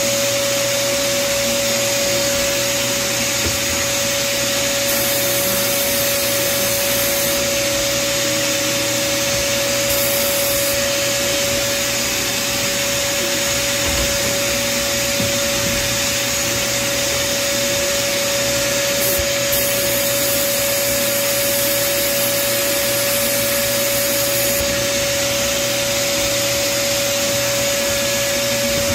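Sandblast cabinet running with a steady hum and a constant hiss of air. The blast gun's hiss grows louder in stretches: about five seconds in for two seconds, briefly near ten seconds, and for about five seconds from twenty seconds. This is abrasive blasting used to etch a mirror through a stencil.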